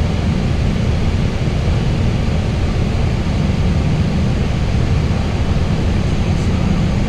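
Steady low rumble of flight-deck noise inside an Airbus A320neo on final approach.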